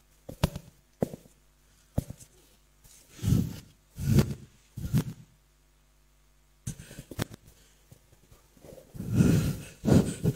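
A woman's heavy breaths and sighs, close to a handheld microphone, coming in several short swells with pauses between. A few sharp clicks or knocks fall among them.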